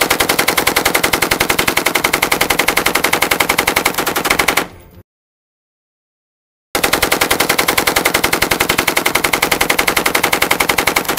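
M249 SAW light machine gun firing two long bursts of automatic fire, a steady rapid rattle of shots. The first burst lasts just under five seconds and cuts off with a brief ringing tail. After about two seconds of silence the second burst starts.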